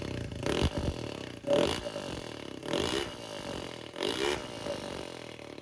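Single-cylinder engine of a 130cc Honda Beat scooter with a newly made race exhaust, revved in four short throttle blips about a second apart, each rising and falling in pitch.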